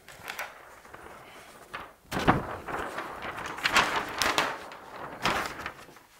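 Large flip-chart paper sheets being turned over and handled: a few light rustles at first, then louder rustling and crackling of the stiff paper in several bursts from about two seconds in.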